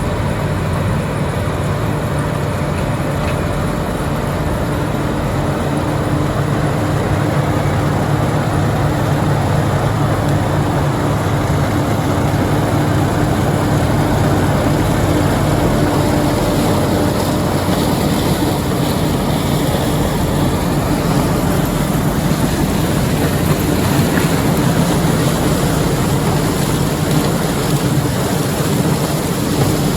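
White 7300 combine running steadily while harvesting corn: a loud, even engine hum under the dense noise of the machine working.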